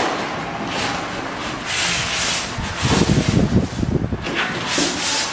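Packing being handled: a plastic bag crinkling and styrofoam blocks rubbing against a cardboard box, in several irregular bursts, the loudest about three seconds in.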